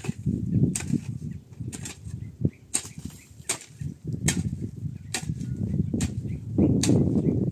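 Repeated sharp knocks or cracks, roughly one a second, over a low rumbling noise.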